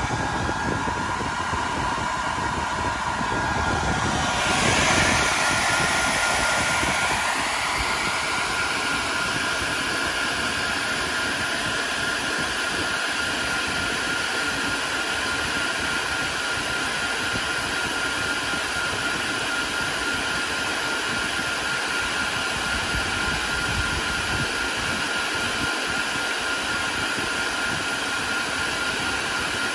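Cooling fans of a Dell Compellent SCV2020 storage array running with a steady whir; about five seconds in the pitch rises and then holds steady.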